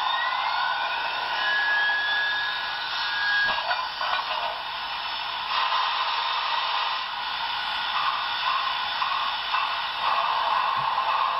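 Sound decoder of an HO scale Union Pacific Big Boy 4014 model playing a standing steam locomotive's sounds through its small speaker: a steady hiss, with a thin rising whine over the first few seconds and a short, steady high tone.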